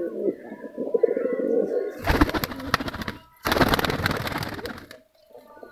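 A flock of domestic pigeons cooing in a loft. About two seconds in come two loud bursts of rustling noise, each over a second long, drowning the cooing before it returns quietly near the end.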